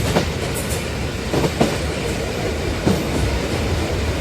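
Rail King toy locomotive running along the track of a homemade model railway diorama, a steady rattling rumble with a few irregular clicks from the wheels over the track.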